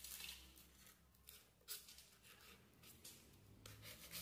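A snap-off utility knife blade shaving expanded polystyrene foam, a few faint scratchy strokes in a row as the edge is pared down to a slope.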